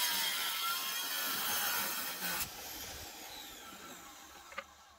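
Diamondback tile saw's diamond blade cutting through a stone ledger tile, a high, even grinding whine. After about two and a half seconds the sound fades steadily away.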